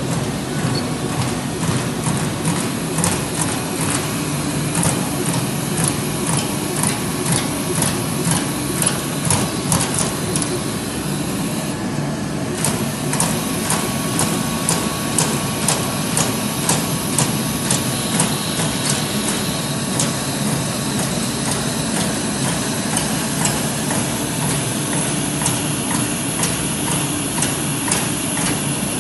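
Trumpf Trumatic 160R CNC turret punch press punching sheet metal: a rapid run of sharp punch strokes, several a second, over the machine's steady running hum. The strokes break off briefly about twelve seconds in, then resume, and thin out in the last third.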